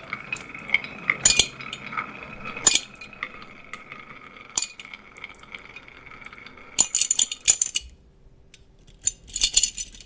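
Marbles rolling and clacking down a wooden HABA marble-run track: a steady rolling hum broken by clicks, then two flurries of rapid clattering near the end as the marbles knock together and against the track.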